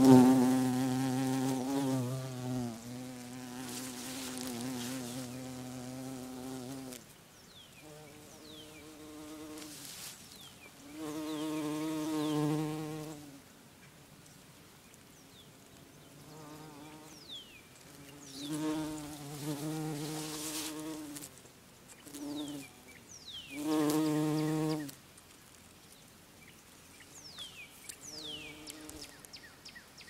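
Bumblebee buzzing close by as it flies among flowers: a low hum that is loudest over the first seven seconds, then fades and returns in shorter bouts of one to three seconds.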